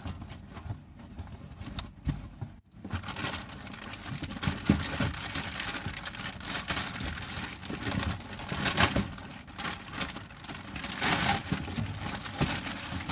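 Packaging being handled and unwrapped: irregular crinkling and rustling of plastic and paper, with scattered clicks and knocks.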